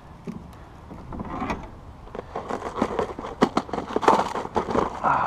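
A run of irregular clicks and rattles, sparse at first and much busier and louder from about two seconds in.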